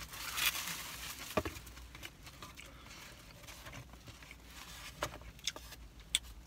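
Quiet eating sounds: a fork picking food out of a foam takeout box, with a few light clicks and scrapes, most of them in the second half.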